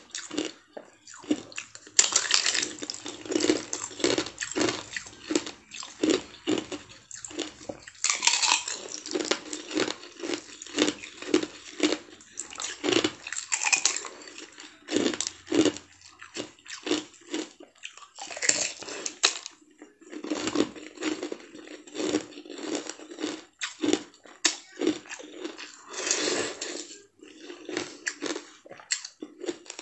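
Biting and chewing of clear, dome-shaped candies with a red filling: a dense, irregular run of crisp crunches and clicks, close to the microphone.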